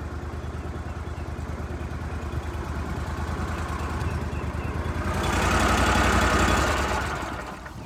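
Go Devil mud motor running at low speed, a steady low engine hum. About five seconds in it is throttled up and gets louder, then eases back near the end.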